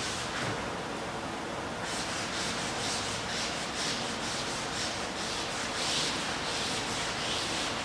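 Hands rubbing back and forth across a canvas surface, a scratchy swish about twice a second over a steady hiss.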